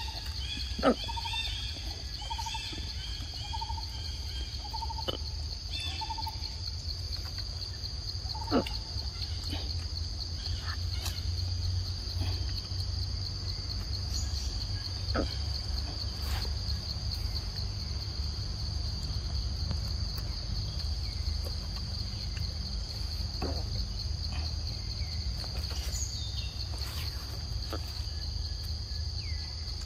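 Insects, crickets or cicadas, keep up a steady high-pitched, finely pulsing drone over a low rumble. A bird calls a run of short repeated notes in the first few seconds, and a few sharp clicks or snaps stand out, the loudest about a second in.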